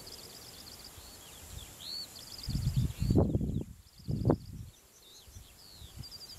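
Songbirds singing: repeated high chirps and short trills. Two louder, low rumbling gusts of wind on the microphone come in around the middle.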